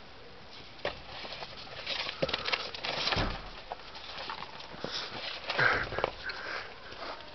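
American Staffordshire terrier puppy playing with a ball: irregular knocks and scuffling, a handful of sharp taps scattered through.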